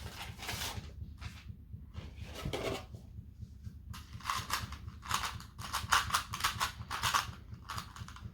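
A Rubik's cube being turned quickly by hand: dense runs of plastic clicks and clatter in irregular bursts.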